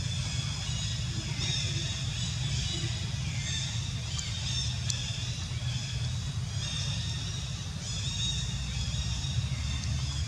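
Outdoor ambience: a steady low rumble with high-pitched chirping that comes and goes in phrases of a second or two.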